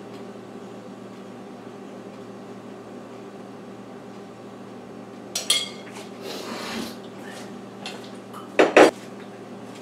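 Steady low kitchen room hum, then a metal spoon clinking and scraping against a glass mixing bowl a little past halfway, and two loud knocks of kitchenware being set down near the end.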